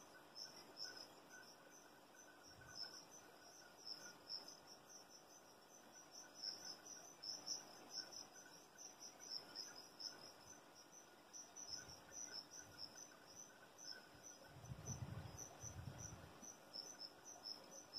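Faint crickets chirping, a rapid pulsing high trill that keeps on without a break. A brief low rumble comes about three-quarters of the way through.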